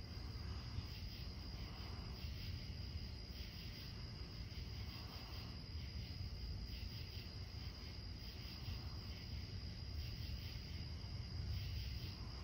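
Crickets and other night insects chirping steadily, with a high thin insect drone, over a low steady rumble.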